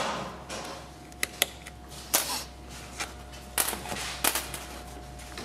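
Plastic stalk switch cluster housing clicking and tapping as it is handled and worked apart, with about half a dozen sharp separate clicks spread over several seconds.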